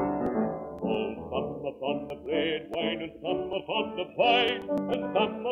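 A 78 rpm gramophone record playing. The instrumental accompaniment holds sustained notes, then a man's singing voice comes in about a second in. A few surface clicks from the disc stand out above the music.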